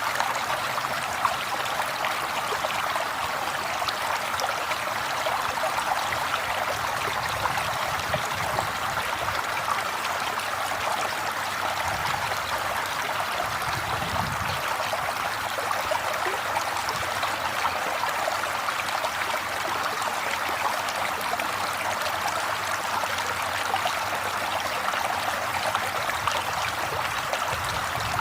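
River water flowing over rocks, a steady rushing and splashing.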